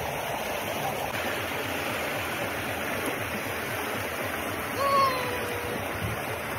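River water rushing over rocks in shallow rapids, a steady wash of noise. A short, slightly falling call rises above it about five seconds in.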